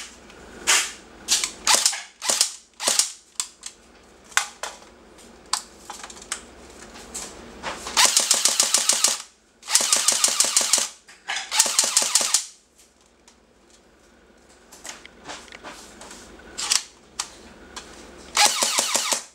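Blowback airsoft electric rifle (ARMY R85 / L85A1) firing: single shots one after another, then four full-auto bursts of about a second each, roughly a dozen shots a second, with a few more single shots between the third and last bursts.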